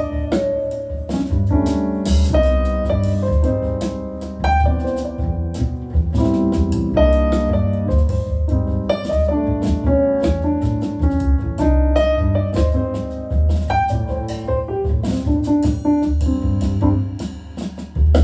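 Jazz piano trio recording played through a Soulnote A-2 integrated amplifier and tall floor-standing loudspeakers: piano melody and chords over a deep double bass line, with cymbal strokes from the drums.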